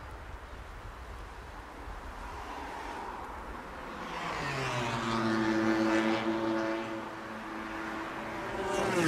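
A motor vehicle going by: a rushing noise at first, then about four seconds in an engine note comes up and holds a steady pitch. Near the end it drops in pitch as it passes.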